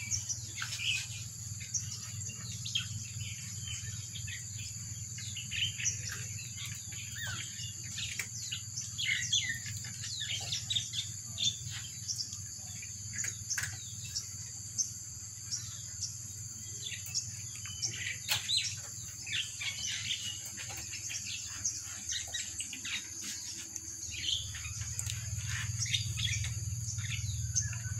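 Steady high-pitched drone of insects such as crickets, with many short chirps of small birds over it and a low hum underneath.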